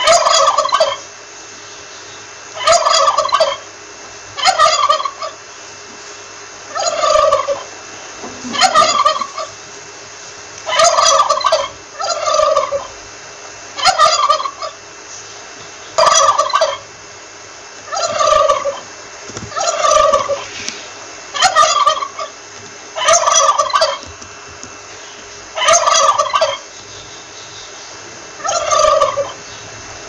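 Male turkey gobbling over and over, one rattling gobble about every two seconds.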